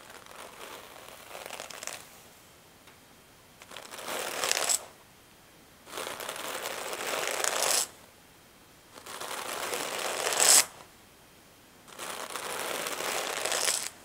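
Wool being carded between a pair of wooden hand cards: the wire teeth brush through the fibre in scratchy strokes, about one every two seconds. Each stroke grows louder toward its end, and the first is faint.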